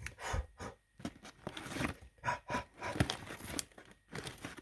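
Freshly popped microwave popcorn paper bag being torn open and crinkled by hand: a run of irregular rustles and crackles that stops suddenly near the end.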